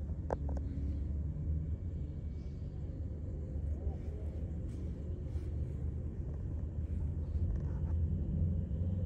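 Steady low rumble of city traffic, with faint distant voices drifting in and out and a couple of light clicks just after the start.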